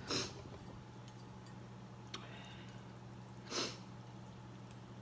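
Two short, airy slurps of ramen or drink, one right at the start and one about three and a half seconds later.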